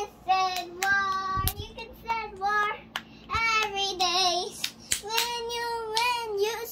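A young girl singing freestyle without accompaniment: short improvised phrases of held, wavering notes with brief pauses between them. A low thump about a second and a half in.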